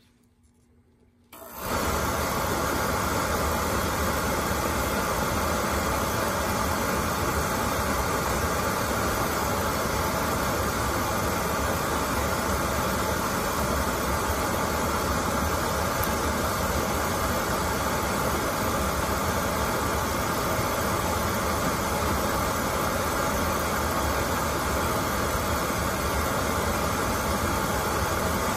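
Oil burner's motor, blower fan and Beckett fuel pump start suddenly about a second and a half in and run steadily with an even rush and low hum. The pump is being bled of air through its bleed hose after clogged oil filters were replaced.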